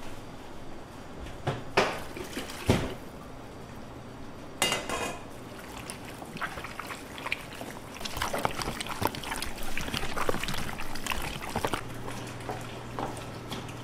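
Raw chicken pieces kneaded by gloved hands in a plastic tub of karaage marinade: wet squelching and sloshing, busiest in the second half. Two sharp knocks come about two seconds in, and a short splash about halfway.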